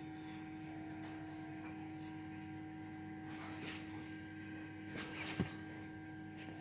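Steady low electrical hum of room tone, with a faint rustle and a brief soft knock about five seconds in.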